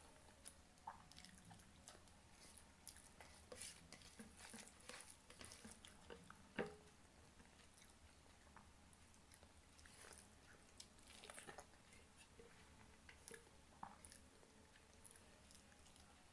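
Faint wet chewing of hand-eaten rice and egg curry: scattered soft mouth clicks and smacks, with one sharper click about six and a half seconds in.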